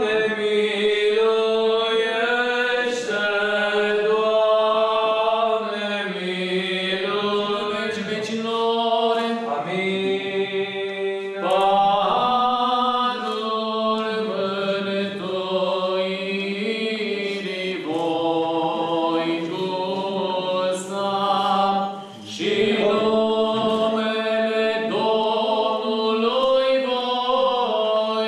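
Orthodox church chant: a sung melody over a steady held drone note, with a brief pause about three-quarters of the way through.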